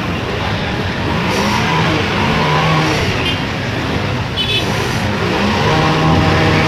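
Car engine running and revving, its pitch rising near the end, over a steady rushing hiss.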